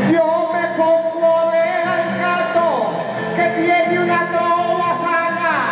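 A male trovador singing an improvised trova paisa verse into a handheld microphone, in long held notes. Twice the voice slides downward, about two and a half seconds in and near the end.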